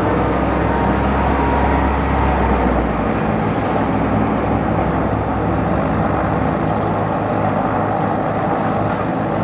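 Cessna 337G Super Skymaster's twin piston engines running, a loud steady drone with a deep hum that drops away about three seconds in.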